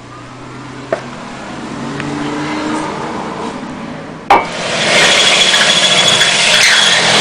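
A power saw cutting through the vehicle's sheet-metal body, loud and steady, starting after a sharp click about four seconds in. Before that, a quieter stretch with a single knock.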